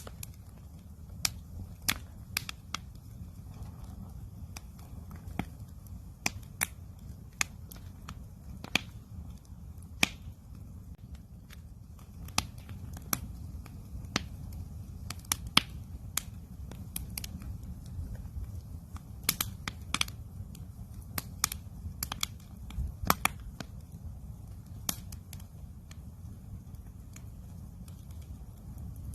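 Wood campfire crackling, with irregular sharp pops and snaps, several close together around the middle, over a steady low rumble.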